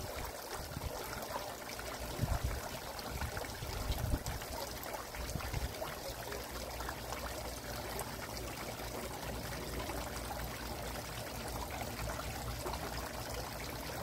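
Tiered garden water fountain, water trickling and splashing steadily down its bowls. A few soft low bumps come about two and four seconds in.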